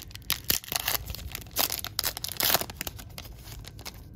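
Foil wrapper of an Upper Deck trading card pack being torn open and crinkled: a run of crackling rips, loudest around the middle, dying away near the end.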